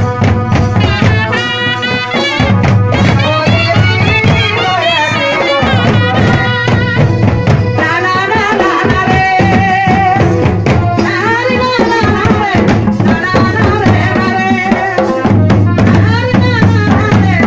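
Live village folk music for a nachni dance: a man singing into a microphone over a hand drum beating a steady rhythm.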